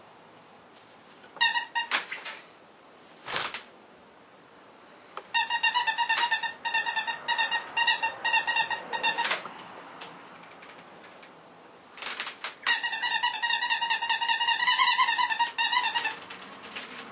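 A squeaky plush toy squeezed over and over in quick runs of steady, high squeaks: a short run near the start, then two longer runs of several seconds each, with pauses between.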